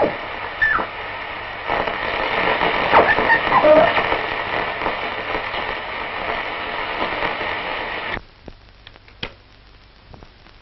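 Shortwave radio receiver hissing with static through its loudspeaker, with whistles and squeals sliding in pitch as the dial is tuned. The noise cuts off suddenly about eight seconds in, leaving a few faint clicks.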